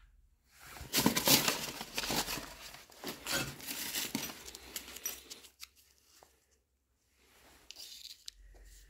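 Old paper documents being handled by hand, rustling and crinkling for about five seconds, then a quieter pause with a little more rustling near the end.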